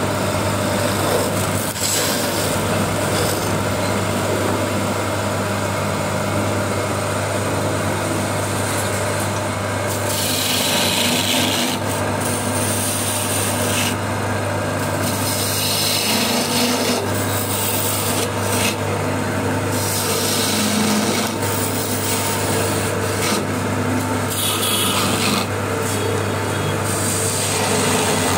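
Electric wood lathe running with a steady low hum while a hand turning chisel cuts the spinning wooden spindle, a continuous rough scraping hiss that grows sharper several times as cuts bite harder.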